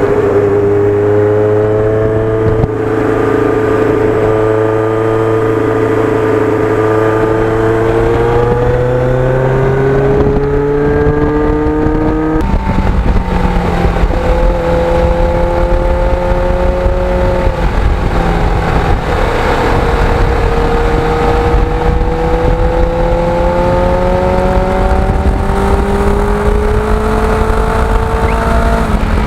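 Kawasaki GPX750R Ninja's inline-four engine pulling under way while riding. The engine note climbs through the first dozen seconds and drops sharply at an upshift, then rises and falls gently with the throttle. Wind rushes past the microphone.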